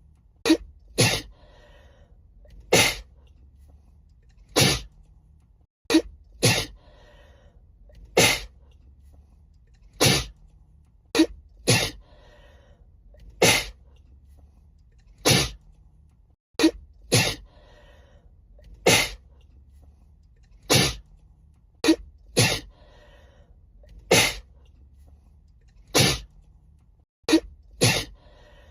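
A woman sneezing over and over in a sneezing fit: about twenty sharp sneezes, one every second or two and sometimes two in quick succession, with faint breaths between them and a low steady hum underneath.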